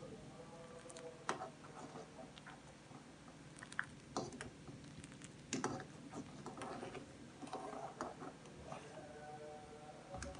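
A metal spoon clinking and scraping against a metal pan at irregular intervals while stirring thickening custard on the stove, kept moving so lumps don't form.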